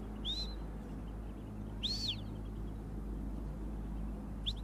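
A handler's sheepdog whistle giving commands to a working dog: short, high whistles that rise and fall in pitch. There is one near the start, a double one about two seconds in, and a quick rising whistle followed by a short level note near the end.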